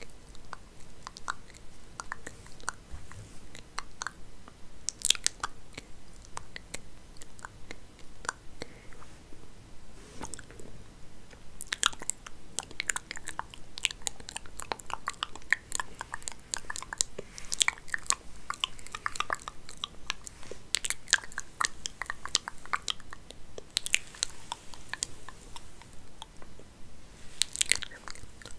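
Hair being combed and played with close to the microphone: irregular crackling and scratching, sparse at first and busier from about halfway.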